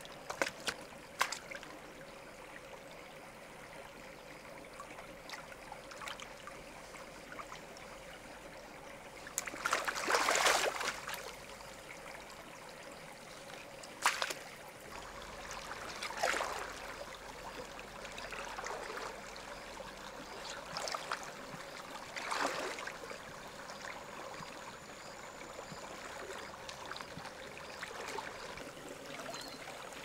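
Shallow river water trickling and flowing steadily, with a few short knocks and splashes and a louder burst of splashing about ten seconds in.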